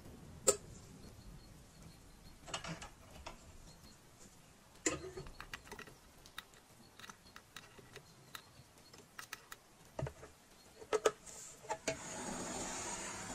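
A pointed metal tool clicking and scraping in the split seam of a copper kettle as it is pried open, with scattered sharp taps and short scrapes. Near the end a gas blowtorch comes on with a steady hiss as the kettle is preheated for soldering.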